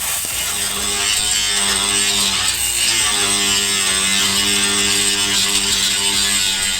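Handheld electric power tool running steadily during sheet-steel panel work, a buzzing motor hum under a bright hiss, stopping abruptly right at the end.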